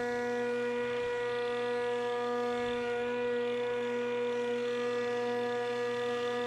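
Pellenc Rasion 2 Easy battery lawnmower's electric motor running at a steady speed, a constant pitched whine that does not rise or fall.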